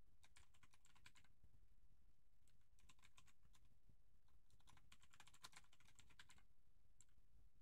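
Faint typing on a computer keyboard, in a few short bursts of keystrokes with pauses between.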